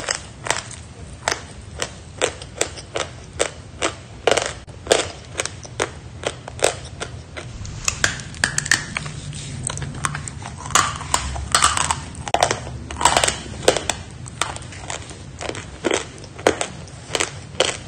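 A block of sawn chalk being bitten and chewed close to the microphone: sharp, dry crunches coming irregularly, about two a second.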